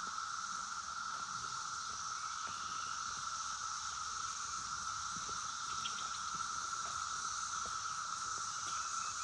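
Chorus of Brood X 17-year periodical cicadas: a continuous, even hum at one mid pitch, with a second, higher steady drone above it.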